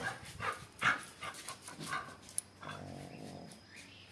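A dog whining and yelping: several short, sharp cries in the first two seconds, then a longer, fainter whine around three seconds in.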